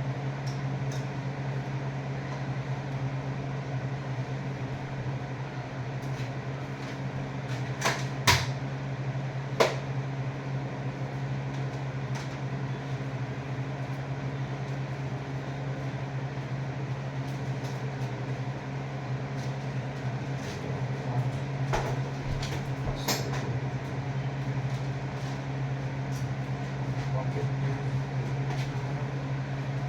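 Steady low mechanical hum, with a few sharp clicks: two about eight seconds in, one near ten seconds and one around twenty-three seconds.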